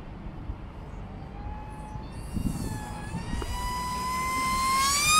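E-flite UMX F-16 micro RC jet's electric ducted fan whining high overhead. The whine dips slightly in pitch, then rises and gets louder toward the end as the jet flies close. Wind buffets the microphone with a low rumble underneath.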